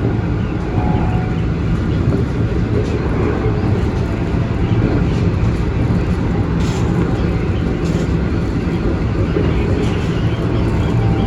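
Keikyu Main Line electric train running, heard from inside the car: a steady low rumble with a hum and a few faint clicks.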